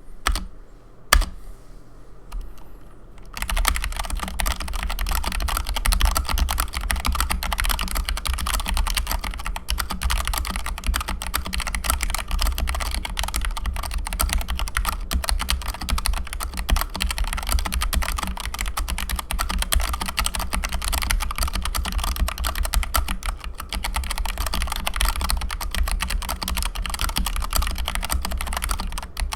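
Typing on an Epomaker Ajazz K620T v2.0 mechanical keyboard with stock Ajazz pink switches and PBT keycaps: a couple of single keystrokes at first, then fast, continuous typing from about three seconds in.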